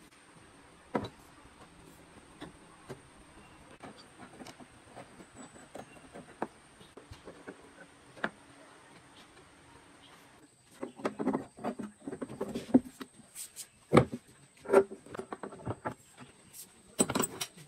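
Metal pipe clamps being set and tightened across a glued-up pine panel: scattered light clicks and knocks, then from about ten seconds in a busier run of metal knocks and clanks as the clamp jaws are slid along the pipes and cranked tight.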